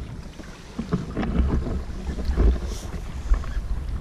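Wind buffeting the microphone with a low rumble, over water lapping and sloshing around a kayak.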